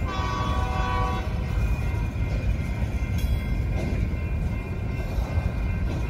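Union Pacific freight cars rolling past with a steady rumble, and a short chorded blast on the locomotive's horn for about the first second. A few wheel clicks come later.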